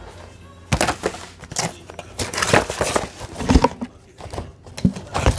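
Things being handled and rummaged through: irregular knocks, clatter and crinkling rustles, starting just under a second in.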